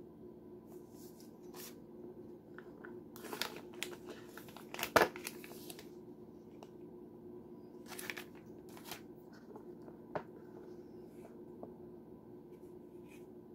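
Paper leaflets and a plastic-bagged cable lock rustling and crinkling as they are handled, in scattered bursts, with a sharp knock about five seconds in as the loudest sound and a smaller click near ten seconds. A steady low hum runs underneath.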